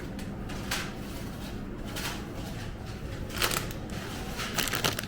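A few short rustling and clattering noises at irregular moments, the loudest around three and a half seconds in and near the end, over a steady low background hum.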